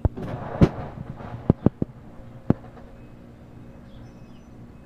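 An excavator tearing into a house: a crunching crash of breaking timber and debris, then several sharp knocks and cracks, over the steady hum of its engine.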